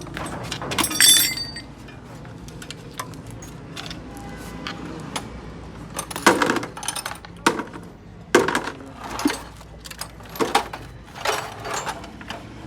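Metal tools and engine parts clinking and knocking: one ringing metallic clink about a second in, then a series of sharp knocks and clanks from about six seconds on.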